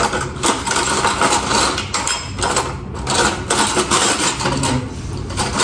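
Kitchen utensils clinking and clattering in a dish rack as someone rummages through it, in many quick, irregular clicks and knocks.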